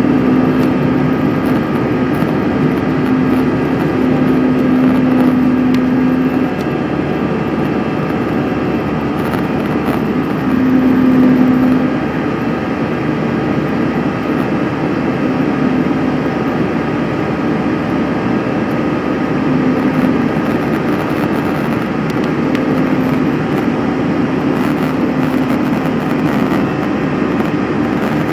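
Airliner jet engines and airflow heard from inside the passenger cabin during the climb after takeoff: a steady rushing noise with a low hum that fades in and out, slightly quieter from about six seconds in.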